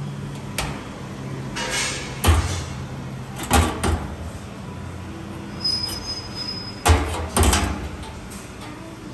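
Hinged stainless-steel lid of a mixing tank and its spring-loaded bolt latches being handled: a series of sharp metal clicks and clanks, the loudest about two seconds in and again near seven seconds. There is a brief high squeak of metal rubbing about two-thirds of the way through.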